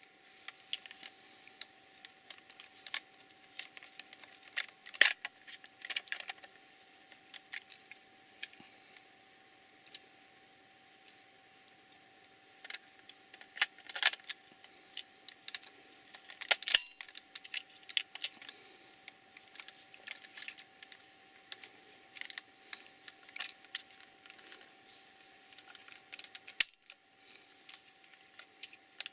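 Irregular clicks, taps and knocks of hard plastic parts as a KO Propo EX-1 RC transmitter is handled and taken apart by hand, with a few louder snaps scattered through.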